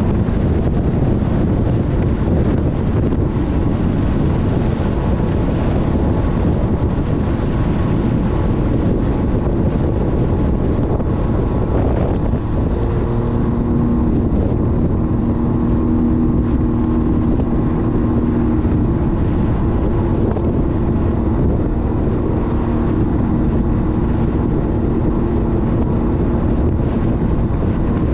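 Sea-Doo personal watercraft running at cruising speed, its engine and jet drive a steady rumble mixed with rushing water and wind buffeting the microphone. About halfway in, a steadier engine tone comes through.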